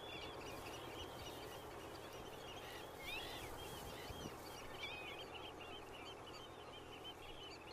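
Faint birdsong: many short chirping calls overlapping continuously over a soft, even outdoor background hiss.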